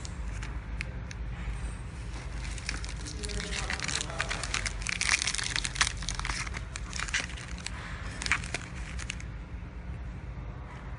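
KT-250B date and candy wrapping machine running with a steady low hum. Irregular clicking and crinkling of the plastic film packs sounds over it, busiest in the middle.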